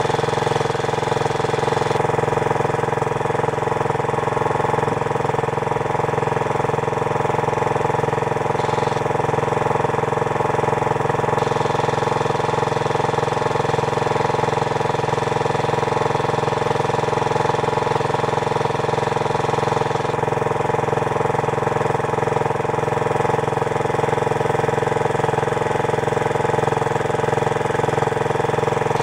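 Small petrol engine driving a water pump, running at a steady speed.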